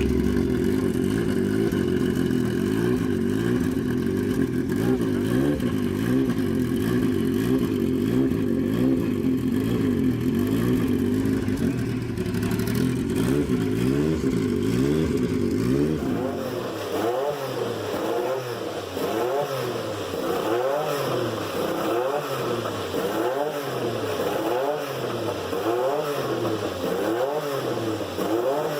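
Porsche 956 race car's twin-turbo flat-six running at a fast idle. From about halfway on, its pitch rises and falls in a regular swing roughly once a second.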